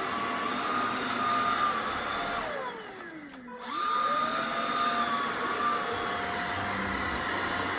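Buture Pro cordless stick vacuum motor running with a steady high whine. About two and a half seconds in it winds down, its pitch falling, then spins straight back up to full speed and runs on steadily.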